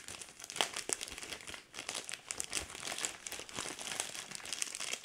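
Packing material crinkling and rustling as a cardboard shipping box of comic books is unpacked by hand, with scattered small clicks and taps.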